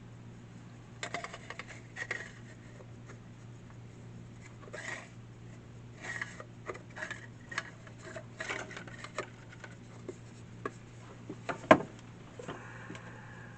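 A fence charger being put back together by hand: scattered small clicks, taps and light scrapes of its parts and case, with one sharper click near the end, over a steady low hum.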